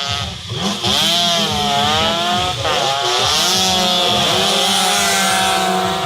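Several racing motorcycle engines revving hard together, their overlapping notes rising and falling in pitch, loud from about a second in.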